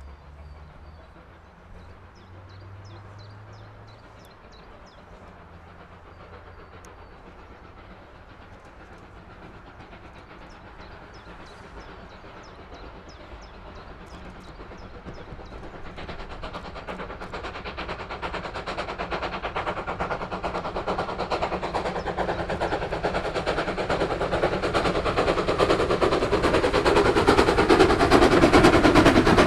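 Steam tank engine 'Fenchurch', an LB&SCR A1X Terrier 0-6-0T, working a train with steady chuffing exhaust beats. The beats grow from faint to loud as it approaches, and the engine and carriages pass close near the end.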